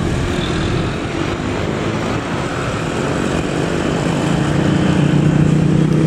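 Road traffic: a vehicle engine running with a steady low drone that grows louder over the last two seconds or so.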